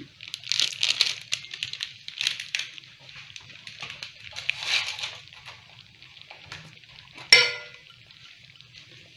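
Thick masala gravy of a brinjal curry bubbling and spluttering in a kadai, an uneven crackle of popping bubbles, busiest in the first half. About seven seconds in, a single sharp clink with a short ring.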